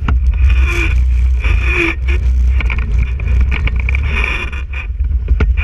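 Quad bike (ATV) engine running as it rides over a rough, muddy trail, a steady low rumble that swells and eases, with several sharp knocks from the machine jolting over the ground.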